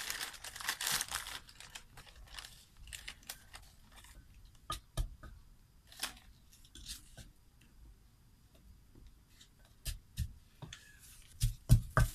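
A thin plastic packet crinkling as it is handled and emptied into a mortar, then scattered light clicks and taps of a wooden pestle and fingers in the mortar. Near the end comes a quick run of low, evenly spaced thumps.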